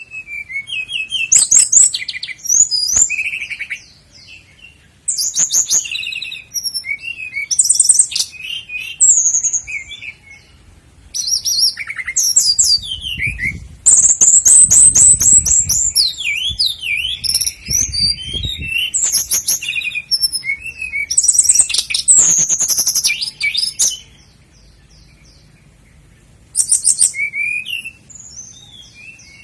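Common nightingale singing in loud phrases of rapid repeated notes, trills and whistles, with short pauses between phrases and a longer pause a few seconds before the end.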